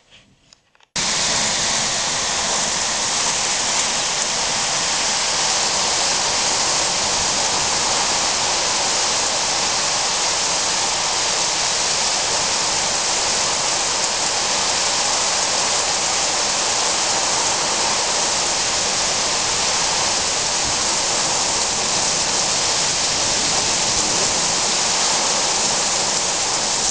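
Heavy rain falling steadily: a dense, even hiss that cuts in suddenly about a second in and holds at one level, with no thunder claps.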